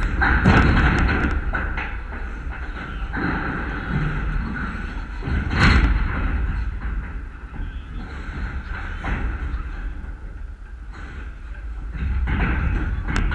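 Uneven low rumbling and muffled thumps on the microphone, with a sharp knock about six seconds in and faint indistinct voices in the background.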